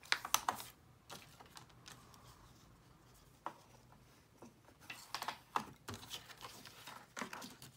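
Patterned paper being folded and creased by hand on a plastic scoring board: a scatter of light clicks, taps and paper rustles, busiest near the start and again about five seconds in.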